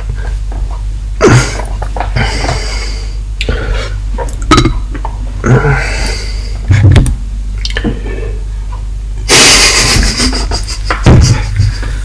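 A string of short knocks and thumps close to the microphone, with a longer loud rushing noise about nine seconds in, over a steady low hum.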